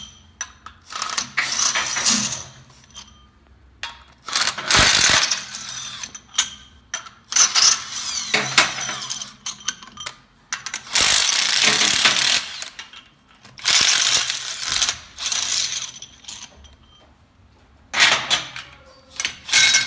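Cordless power driver running in short bursts of a second or so, about seven times, spinning out the pre-loosened bolts of a Wanner Hydra-Cell T100 pump's suction-valve cover. Short clicks and clinks come between the runs as bolts are handled.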